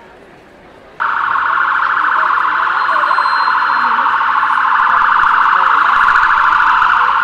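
Police car siren switched on suddenly about a second in, a loud, fast pulsing warble that holds steady in pitch as the car comes closer.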